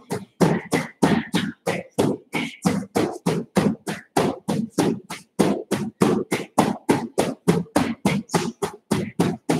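A person's sharp exhaled breaths, one with each fast punch thrown, in a quick steady rhythm of about four a second.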